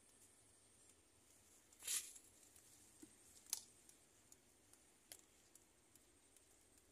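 A hand brushing through okra leaves and taking hold of a pod: a short rustle about two seconds in, then one sharp click and a few faint ticks, over near silence.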